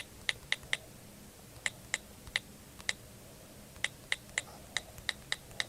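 Keys of a mechanical keyboard being pressed: about a dozen sharp, bright clicks at an uneven typing pace, some in quick runs of three or four.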